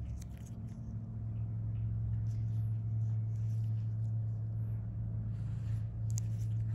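A steady low hum, with a few faint short clicks and scratches over it.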